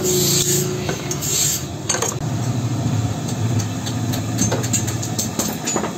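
Light metallic clinks of thin band saw blade steel strips being handled and set down, a few scattered through, over a steady low hum.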